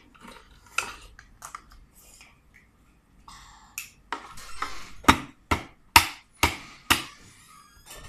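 Cooked blue crabs being cracked and picked apart: scattered snaps and clicks of shell, then a run of about five hard knocks, roughly two a second, as a metal utensil strikes the shells.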